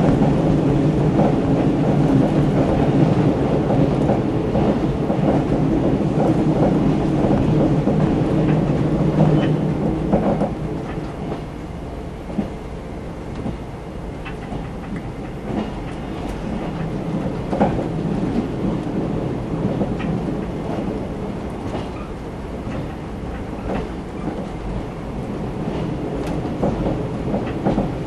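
JR 381 series electric train running at speed, heard from inside the passenger car: a steady rumble of wheels on rails with a few sharp clicks. The rumble drops noticeably about ten seconds in and stays lower.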